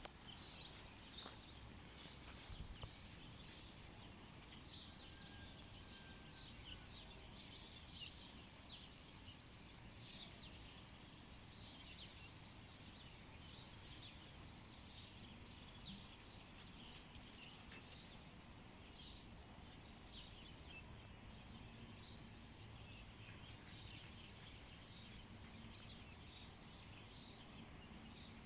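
Faint outdoor ambience with small birds chirping on and off, including a short rapid trill about nine seconds in.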